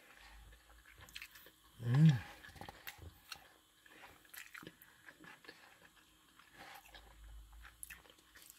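Close-up chewing and mouth sounds of someone eating fried rice, with small wet clicks and smacks. A brief vocal sound, like a hum, about two seconds in is the loudest moment.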